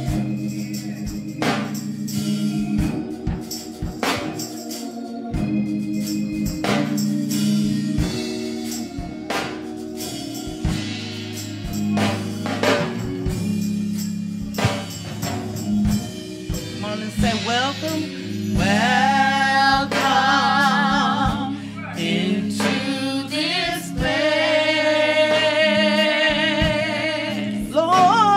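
Gospel praise music: held organ chords over a steady beat, then women's voices come in singing wavering held notes about two-thirds of the way in.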